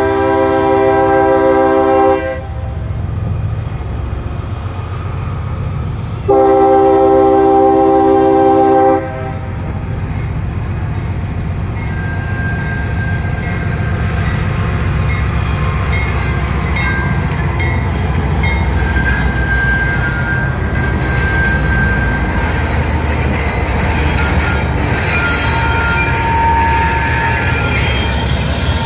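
A CSX freight locomotive's air horn sounds two long blasts over the low rumble of the approaching train. From about halfway through, the rumble grows and high, wavering wheel squeals rise from the train as it rolls past.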